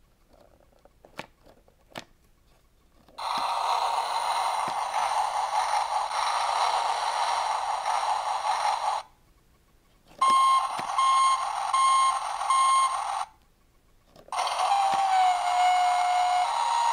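Tonka Toughest Minis front-loader toy playing its push-button electronic sound effects through a small built-in speaker: two button clicks, then three separate sound clips. The first is a steady machine noise lasting about six seconds, the second has four evenly spaced reversing-style beeps, and the third holds a tone that drops in pitch.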